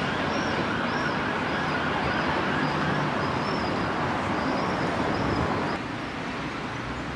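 Emergency vehicle siren sounding over street noise, its pitch rising and falling about twice a second; it stops and the level drops about six seconds in.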